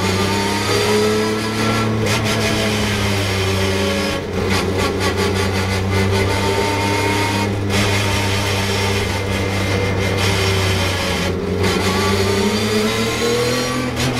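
Porsche 911 GT3 Cup race car's flat-six engine heard from inside the stripped cockpit, pulling in second gear at around 4,000 rpm. There are a few brief dips, and the pitch rises near the end.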